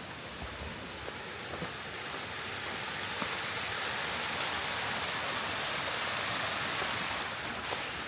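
Rushing water of a mountain stream and its cascades, a steady hiss that swells in the middle and eases off near the end, with a few faint clicks.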